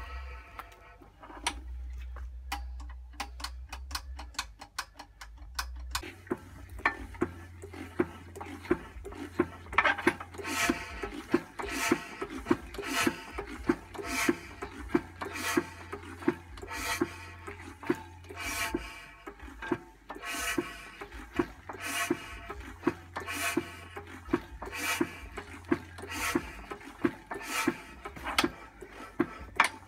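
Imperial Super Diesel single-cylinder engine being hand-cranked without starting: the spinning flywheels and works make a rhythmic mechanical clatter. Fine rapid clicking at first, then from about six seconds in a sharp knock roughly once every second and a bit.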